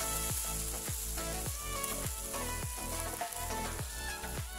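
Thin slices of marinated beef sizzling in a nonstick frying pan, with wooden chopsticks shifting the pieces around. Background music with a steady beat plays underneath.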